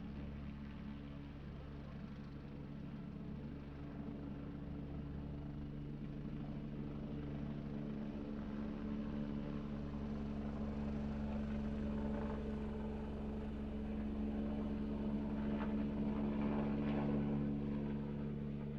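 Helicopter taking off: a steady low drone from the engine and rotor that grows gradually louder, then eases off slightly near the end.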